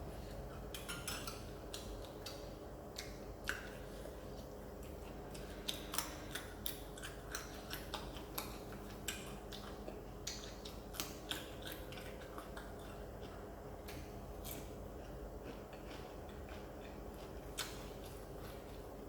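Crunchy deep-fried fish being eaten close to the microphone: short, crisp, irregularly spaced crackles and clicks, over a faint steady low hum.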